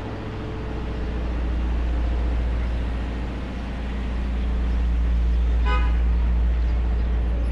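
Deep, steady rumble of city street noise that swells in loudness over the first couple of seconds and again later, with one short vehicle horn toot a little past halfway through.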